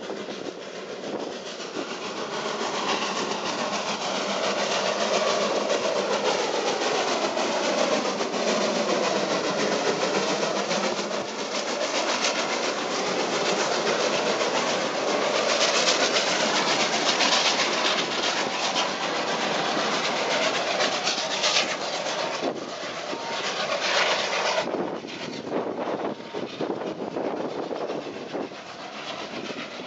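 Narrow-gauge steam train, the 1902 locomotive WB5 with its passenger coaches, rolling close past with continuous wheel-on-rail clatter. The noise builds over the first few seconds, sweeps as the coaches pass close, and drops away near the end as the train moves off.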